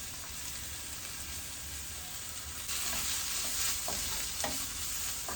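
Onions and curry leaves frying in hot oil in a pan, a steady sizzle that grows louder about halfway through. A spoon stirring gives a few light scrapes and taps in the second half.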